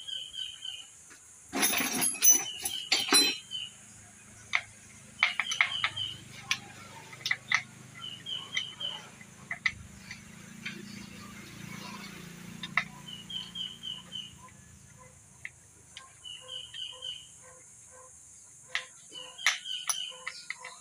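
Metal hand tools clinking and tapping on the valve-cover bolts of a Mitsubishi 4DR5 diesel engine that is not running. The clinks come scattered, thickest a couple of seconds in.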